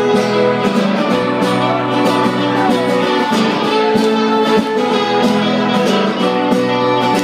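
Live rock band playing an instrumental passage between sung lines: strummed guitars over bass and drums.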